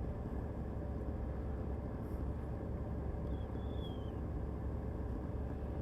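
Steady low rumble with a light hiss, and a brief faint high whistle that dips slightly in pitch a little past the middle.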